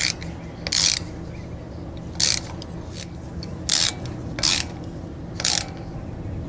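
Hand ratchet clicking in about six short bursts, roughly a second apart, as a fastener is run in at a truck's front wheel hub.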